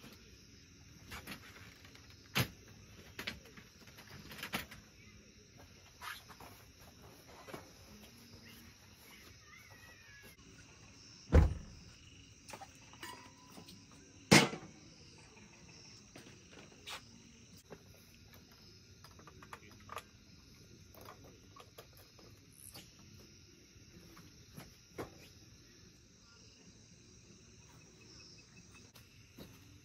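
A steady chorus of night insects, with camping gear being handled over it: scattered light clicks and knocks, and two louder sharp knocks a few seconds apart midway.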